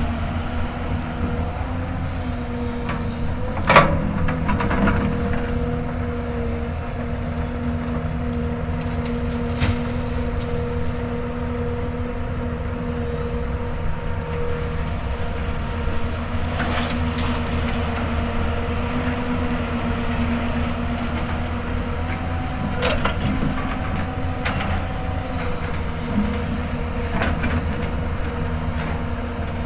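Hyundai Robex 220-9S excavator's diesel engine running steadily under load while digging hard ground, with a few sharp clanks, the loudest about four seconds in.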